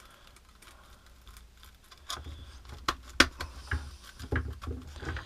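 Handling noise from a plastic detail sander as a hook-and-loop sanding sheet is pressed onto its pad and the tool is turned over in the hands. It is faint at first, then from about two seconds in comes a scatter of light clicks and taps, the sharpest two close together about three seconds in.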